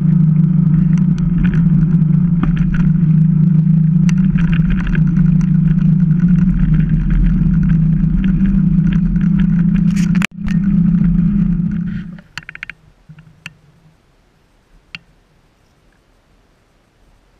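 Wind buffeting the action camera and tyre rumble as a mountain bike rolls fast down an asphalt road, with scattered rattling clicks. About twelve seconds in this cuts off and only a few faint ticks remain.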